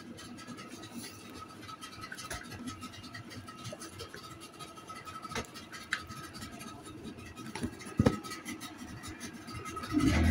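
Phone handling rustle and scrapes, with a sharp knock about eight seconds in. Near the end a Yamaha 40 hp outboard motor starts and settles into a steady low running note.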